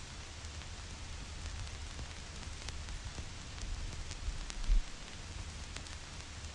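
Vinyl record surface noise: a steady hiss with scattered sharp clicks and pops and a low rumble. A stronger low thump comes about two-thirds of the way through.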